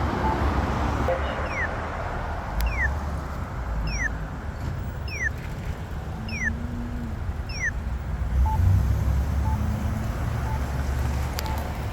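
Accessible pedestrian signal push buttons at a crosswalk, sounding short locator beeps about once a second. In the middle stretch, six identical falling electronic chirps come evenly spaced a little over a second apart. Steady road traffic rumbles underneath.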